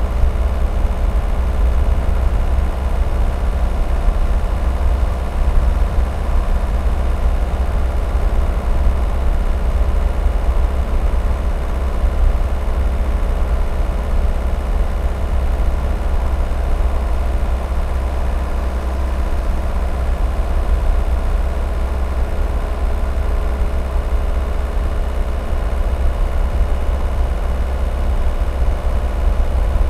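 Škoda Octavia II with the 1.9 TDI four-cylinder diesel driving at a steady speed, heard from a camera mounted on top of the car: a steady low rumble of wind and road noise, with a faint steady engine hum.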